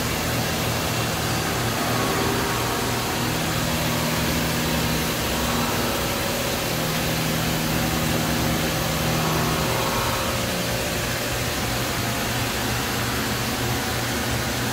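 Fadal 4020HT vertical CNC machining center running a program: a steady machine hum with low pitched tones that change and drop out every few seconds as it runs through its moves.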